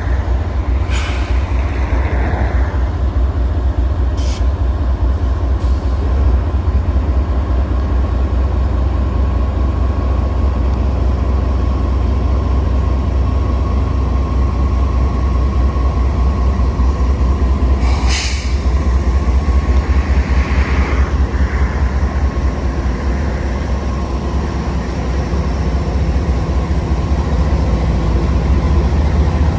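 Freight train running with a steady low rumble and a faint steady whine, broken by a few short sharp clicks.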